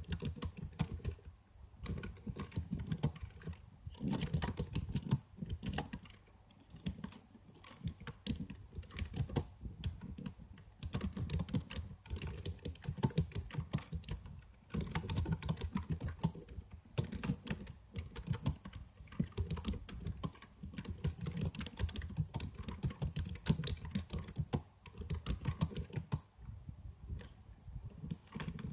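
Typing on a computer keyboard: fast runs of key clicks in bursts of a second or two, with short pauses between them.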